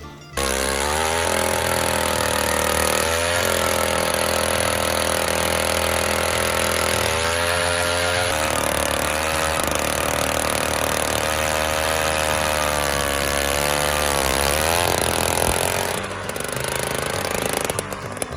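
Small gas engine of an ice auger running, its revs rising and falling several times. It cuts in suddenly at the start and drops in level near the end.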